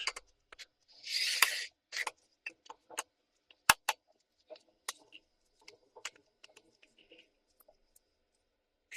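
Small clicks and scrapes of a screwdriver taking the screws out of a laptop hard drive's mounting bracket, with a short rasping scrape about a second in and a sharper click near the middle.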